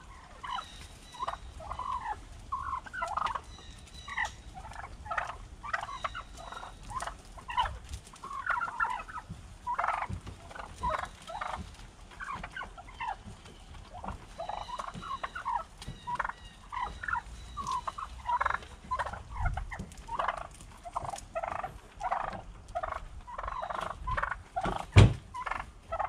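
A flock of wild turkeys calling, with many short calls overlapping and repeating throughout. A single sharp knock comes about a second before the end.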